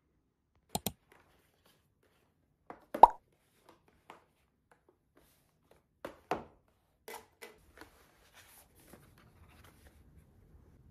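Small cardboard product boxes being handled and set down on a hard tabletop: a series of sharp taps and knocks, the loudest about three seconds in, trailing off into faint light clicks near the end.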